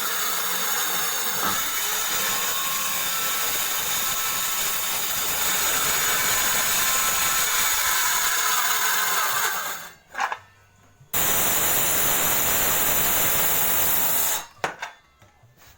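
Homemade table saw running with a steady high whine. It dies away about ten seconds in, starts again abruptly about a second later, and stops a second or so before the end, with a few clicks after.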